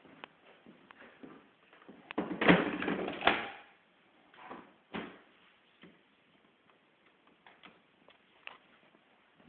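Knocks and clunks from handling a Miele tumble dryer: a loud cluster of knocks about two seconds in, then a few scattered light clicks.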